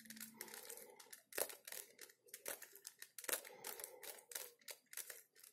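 Plastic Rubik's cube layers being turned by hand: a run of faint, irregular clicks and clacks as the faces snap round.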